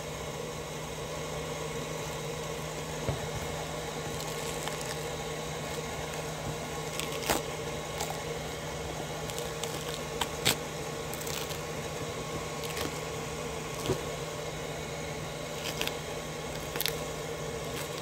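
Shoe sole being pried and peeled away from a suede boot upper with a metal rod and by hand, with a few sharp cracks as the glue lets go, over a steady hum.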